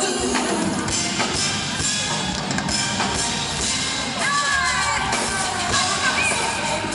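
Live R&B concert sound in a large hall: a band with drum kit playing, with singing and crowd voices mixed in, and a few gliding sung or shouted notes about four to six seconds in.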